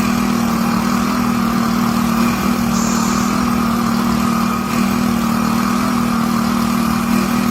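A motor or engine running at a steady, unchanging speed, giving a loud drone with a strong low hum. It cuts in abruptly.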